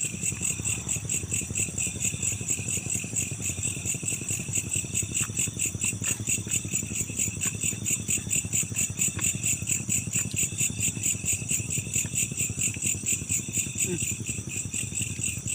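Night chorus of crickets chirping in a fast, steady pulse, with a lower rhythmic pulsing beneath and a few faint clicks.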